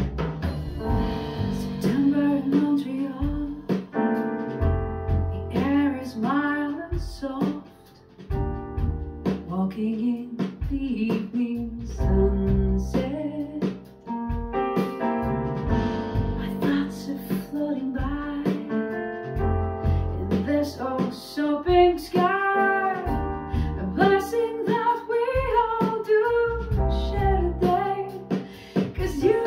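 A song with a singer over a deep bass line, played back through KEF LS60 Wireless hi-fi speakers in a listening room.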